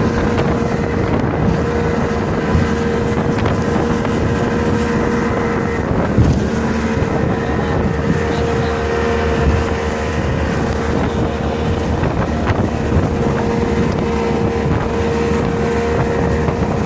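Motorboat engine running steadily with a constant hum, with strong wind in a dust storm buffeting the microphone.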